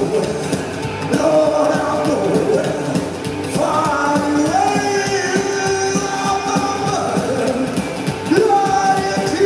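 Live psychobilly band playing a rock-and-roll number, with upright bass, drums and electric guitar under a lead line that slides up in pitch a few times.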